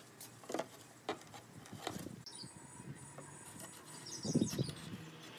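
Wooden board knocking and scraping against the sides of a wooden box as it is set in and pressed into place, a few light knocks early and the loudest bump about four seconds in. Birds chirp faintly in the background.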